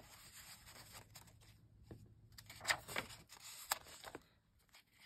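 Soft paper rustling as the pages and paper inserts of a junk journal are handled and turned, with two sharper paper swishes about a second apart past the middle.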